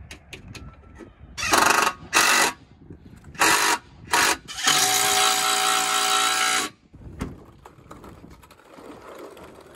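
Cordless drill-driver run in four short bursts and then one longer run of about two seconds with a steady motor whine, driving the mounting bolts of a power running-board bracket under a truck.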